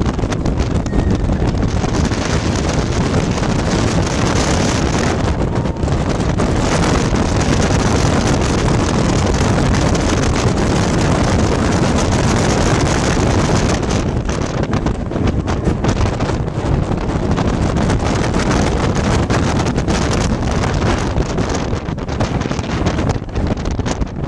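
Wind buffeting the microphone and the steady roar of a steel roller coaster train running along its track at speed, heard from the back seat of Goliath. The highest part of the rush thins out in the second half as the train nears the end of the ride.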